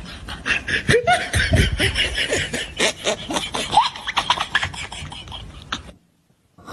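People laughing and chuckling over a run of rapid clicks, cutting off abruptly about six seconds in.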